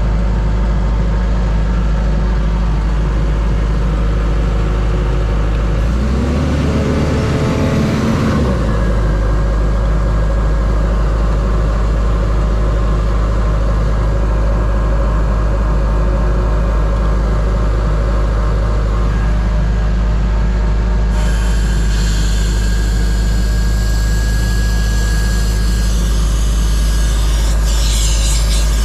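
Engine-driven air compressor of a mobile sandblasting rig running with a steady low drone. About two-thirds of the way through, a loud rushing hiss comes in suddenly on top of it.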